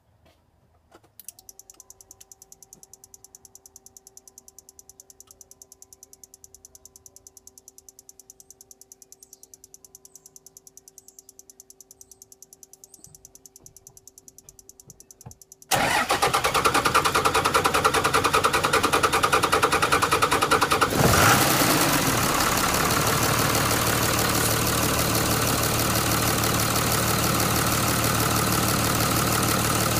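5.9-litre 24-valve common-rail Cummins inline-six diesel, its valvetrain exposed with the valve cover off, being started after new 100hp injector nozzles were fitted. A faint electric hum with a fast pulse comes first. About halfway through, the starter cranks the engine with a sudden loud clatter. It fires about five seconds later with a brief rise and fall in revs, then settles into a steady idle.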